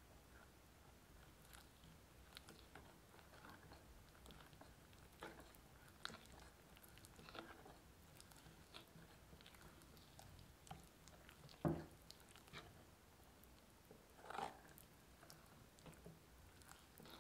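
A silicone-coated whisk stirs thick financier batter in a glass bowl. The sound is faint and irregular: soft wet squelching with light clicks of the whisk against the glass. Two louder knocks come about two-thirds of the way through and again toward the end.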